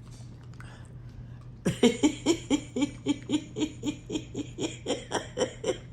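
A woman bursts into hearty laughter about two seconds in. It comes as a steady run of loud "ha" pulses, about four a second.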